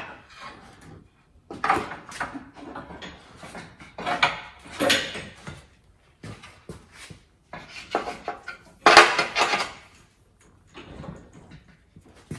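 Irregular clattering and knocking of tools and parts being handled during work on a car, in several separate bouts; the loudest comes about nine seconds in.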